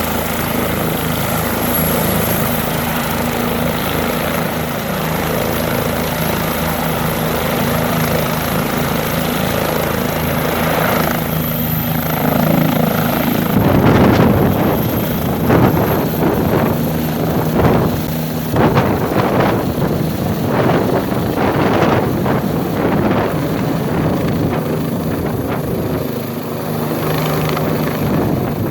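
Bell 429 twin-turbine helicopter running with a steady high turbine whine and rotor beat; about halfway through the whine rises slightly in pitch as it powers up for take-off, and the rotor downwash then buffets the microphone in uneven gusts.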